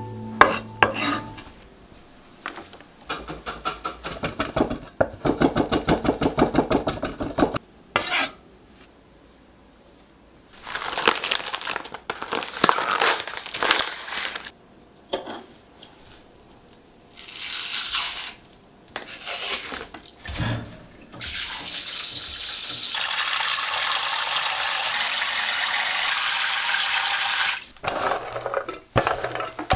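Kitchen food-prep sounds: a run of fast, even knife chops on a cutting board, scattered clatter of dishes, then a kitchen tap running steadily for about six seconds near the end.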